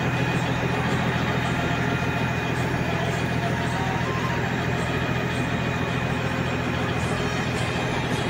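Ferry's engine running steadily, a low, even drone with a fast throb.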